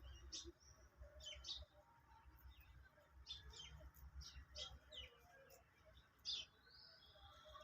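Small birds chirping faintly: short, sharp chirps at irregular intervals, with one longer whistled note near the end.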